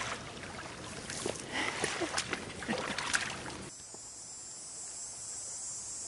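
Rubber wader boots sloshing and splashing through shallow river water, one uneven stride after another. About three and a half seconds in the sound cuts off suddenly to a faint, steady high hiss.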